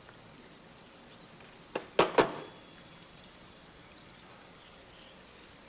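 Corded telephone handset hung up on its cradle: a light click, then two sharp clacks in quick succession about two seconds in.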